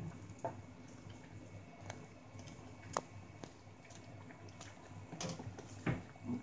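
A spoon stirring cooking red lentils in a stainless-steel saucepan: soft wet squishing, with scattered clicks and knocks of the spoon against the pan, the sharpest about three seconds in and near the end.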